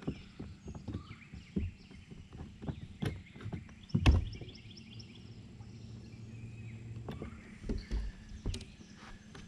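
Knocking and clatter on a bass boat's deck while a just-caught largemouth bass is handled and unhooked, with one loud thump about four seconds in. A low hum runs for a few seconds in the middle, and birds chirp throughout.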